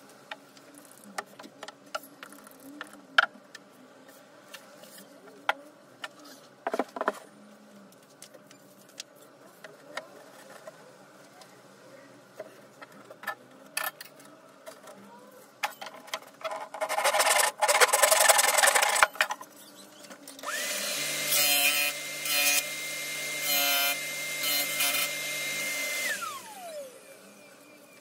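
Scattered knocks and taps from wooden parts being worked, then a few seconds of harsh cutting noise into wood. After that a power tool's motor runs at a steady high speed for about five seconds and winds down as it is switched off.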